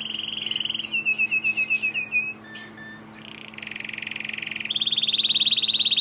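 Timbrado canary singing. A fast rolling trill gives way to a run of short falling notes, about eight a second. After a pause of about a second, the song builds into a loud, long rapid trill.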